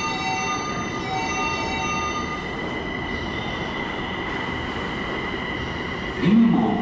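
Linimo HSST maglev train pulling away, its linear-motor drive giving a steady high electric whine over a low rush, with a few higher tones that break off after about two and a half seconds.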